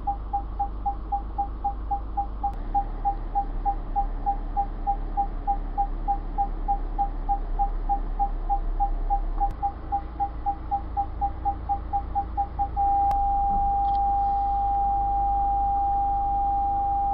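Car parking sensor beeping rapidly, about four to five beeps a second, then switching about 13 seconds in to one continuous tone, the signal that the obstacle is very close. A low hum runs underneath.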